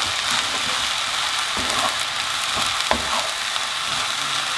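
Rice, vegetables and egg sizzling in a hot frying pan as they are stirred with a wooden spatula: a steady hiss with a few soft knocks of the spatula against the pan.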